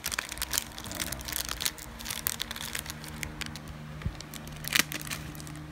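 Plastic packaging of a phone repair tool kit crinkling and crackling as it is handled and opened by hand, with irregular sharp clicks and a louder crackle near the end.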